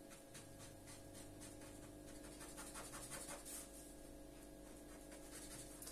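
Black felt-tip pen scratching on paper as it shades in a dark area with quick back-and-forth strokes. The strokes are faint and come in short runs.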